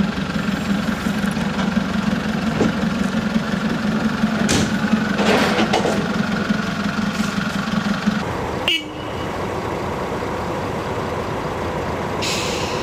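An approaching rail vehicle runs with a steady engine drone, with a few short clanks. About two-thirds of the way in it switches to the steady running noise of a yellow track maintenance machine close by.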